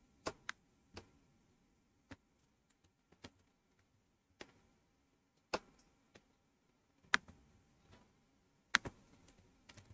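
Single clicks of a computer mouse, about a dozen at irregular spacing, each sharp and brief.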